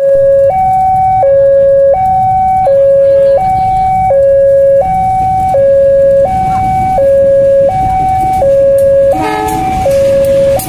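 Level-crossing warning alarm sounding a steady two-tone high-low chime that switches pitch about every three-quarters of a second, over a low rumble of idling motorbikes. A short, louder pitched blast comes about nine seconds in.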